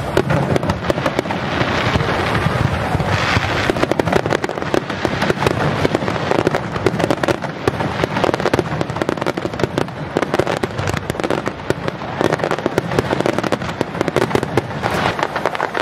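Fireworks display: aerial shells bursting in a continuous, rapid barrage of bangs and crackling.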